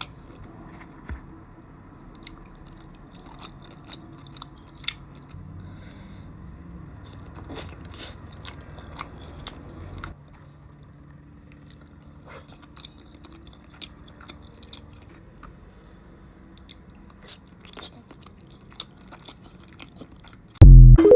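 Close-up chewing and biting of seafood-boil food, with many sharp crunching clicks. Near the end, a sudden, very loud pitched sound cuts in.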